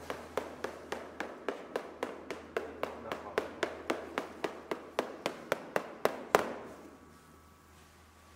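Cheese master's small hammer tapping a Parmigiano Reggiano wheel, about three quick, even taps a second, with the last and loudest about six seconds in before it stops. This is the hammer sound test for quality, where the sound must be the same at every point on the wheel.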